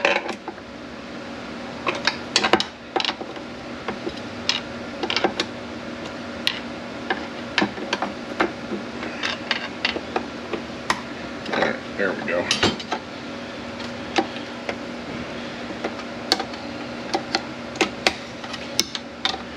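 Steel parts and hand tools of a 6T45E automatic transmission clinking and knocking at irregular intervals as the unit is taken apart, over a steady low hum.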